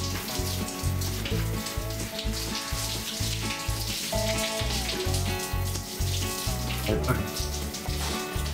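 Shower spray running with a steady hiss, under background music with a steady bass beat and held melody notes.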